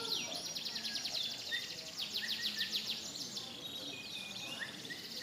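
Several songbirds singing at once, a dense chorus of rapid downward-sweeping notes and fast trills with a few short chirps mixed in.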